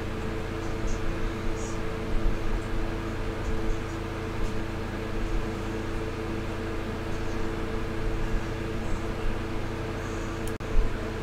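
Steady mechanical hum with a few constant low tones over a faint hiss, like a fan or air conditioner running, with one sharp click near the end.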